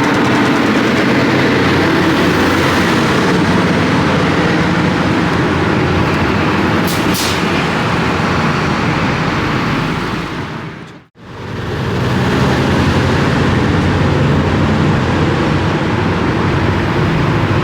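Heavy road vehicles running loudly close by: the truck convoy hauling a railcar, with a steady engine hum and road noise. A short high hiss comes about seven seconds in, and the sound drops away briefly and returns about eleven seconds in.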